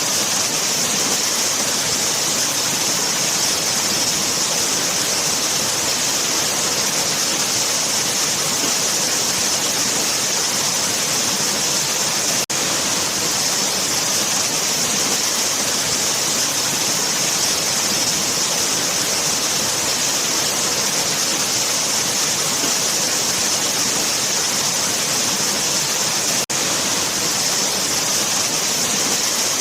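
Waterfall: falling water rushing in a steady, dense roar, broken by two very brief dropouts, about halfway and near the end.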